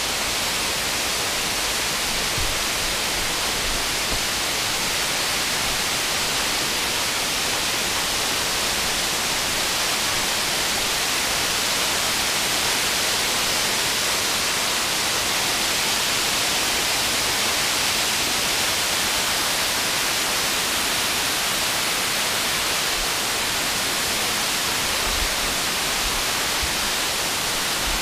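Steady rushing of creek water, an even hiss that does not change.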